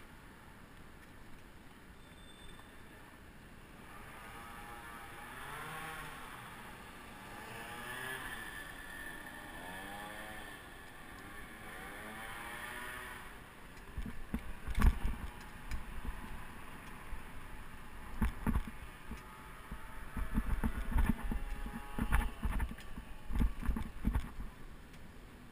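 City street traffic heard from a bicycle: a motor vehicle engine whose pitch rises and falls several times, then a run of heavy thumps and knocks.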